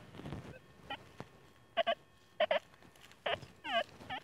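XP Deus II metal detector speaker sounding about eight short warbling target beeps, several in quick pairs, each dipping and rising in pitch. A faint steady threshold hum runs underneath.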